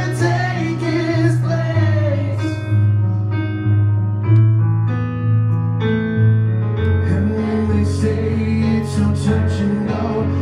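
Live band performing a rock ballad, with a male lead vocal, electric guitar, bass, keyboard and drums. A couple of seconds in, the singing and cymbals stop, leaving held keyboard and guitar notes over the bass. Near the end the drums come back in.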